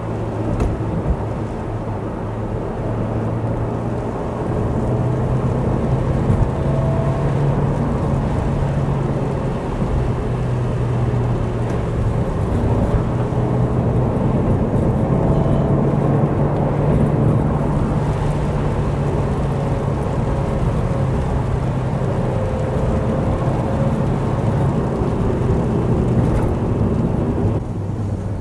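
Vauxhall Corsa driving along a country road: a steady engine drone under tyre and road noise, getting a little louder about four to five seconds in.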